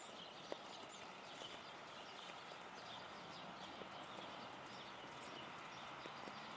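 Light rain falling steadily through tree foliage, a soft hiss with scattered drips ticking on leaves and a sharper single tick about half a second in.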